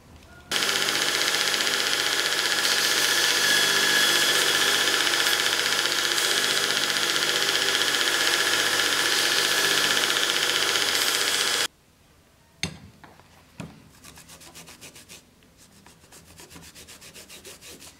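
Belt sander running with a leather scabbard edge held to the belt: a steady motor hum and abrasive hiss that starts abruptly half a second in and cuts off sharply about twelve seconds in. After it come two soft knocks and a fast, quiet hand rubbing of the stitched leather edge.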